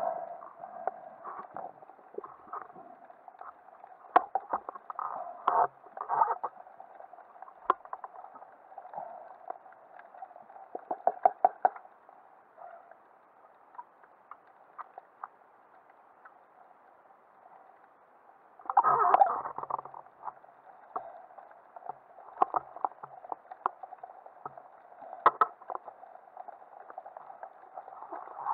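Muffled water sound heard underwater through a camera's waterproof housing, with many scattered sharp clicks and knocks. A louder rush of water comes about two-thirds of the way through.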